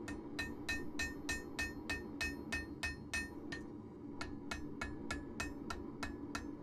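A light one-pound hammer striking a red-hot steel knife blade on a Peter Wright anvil, about three ringing blows a second, with a short pause a little over halfway through. These are light planishing blows that smooth out heavier hammer marks and straighten the blade.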